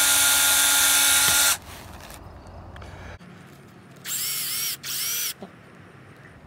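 Cordless drill with a socket bit running steadily, turning the trim gear to feed the toothed trim belt through the housing; it stops suddenly about a second and a half in. Two short high chirps follow near the end.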